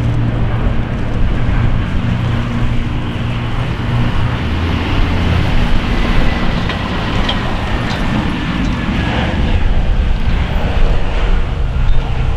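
Sukhoi Superjet 100's twin PowerJet SaM146 turbofans running as the jet touches down and rolls out on a wet runway: a steady jet roar with a low hum in the first few seconds.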